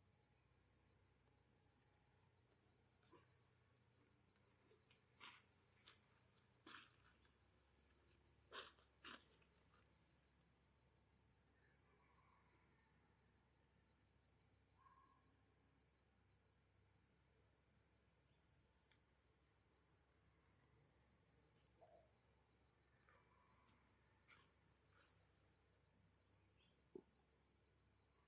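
Faint insects chirping steadily in an even pulse of about four chirps a second, with a thin high steady tone above them and a few scattered faint clicks.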